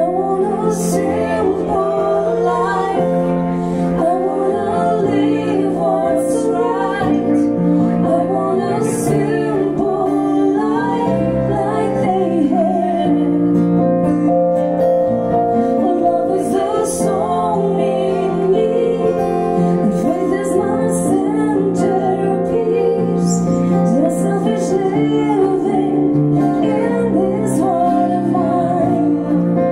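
Live music: a woman singing over acoustic guitar and an electric keyboard.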